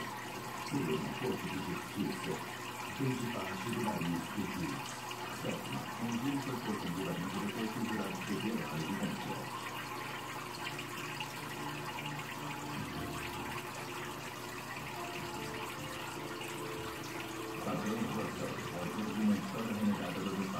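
Aquarium water running and splashing steadily, as from the filter's return pouring into the tank.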